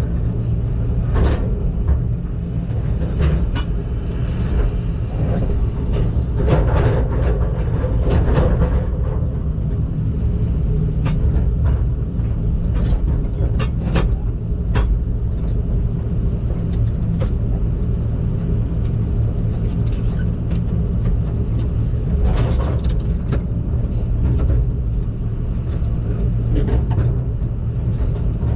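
Heavy machine's engine running steadily, a low hum with scattered clicks and knocks over it.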